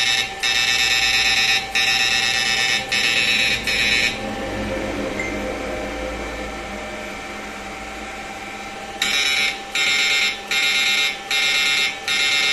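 Boss 24V electric fish-shocker inverter running under test into a lamp load, giving a loud, high-pitched electronic buzz. At first it comes in long pulses with brief breaks, then it drops to a quieter hum for several seconds midway. From there it switches on and off in quick pulses, under a steady faint tone.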